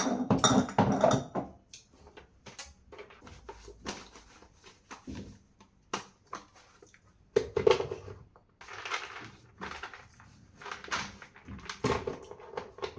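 Kitchen containers and packets being handled and moved about in a cabinet: irregular knocks, clicks and rustling, with louder clatters near the start, around the middle and near the end.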